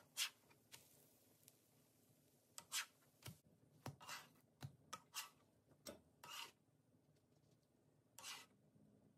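Slotted spatula scraping across a nonstick electric griddle as it slides under pancakes to flip them and lift them off: a string of about ten short, quick scrapes.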